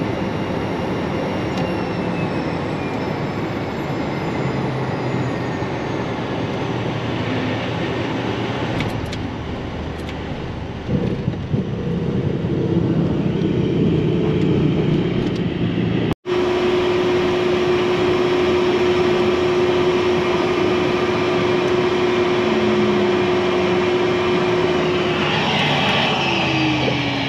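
Cockpit sound of an Embraer Phenom 100's twin Pratt & Whitney PW617F turbofans after landing and while taxiing: a steady rushing noise with whining tones that glide slowly down. A brief dropout comes about halfway, then a steady whine, and the pitch falls again near the end.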